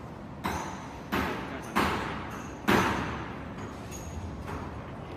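Four sharp knocks in the first three seconds, each dying away over about half a second and each louder than the last.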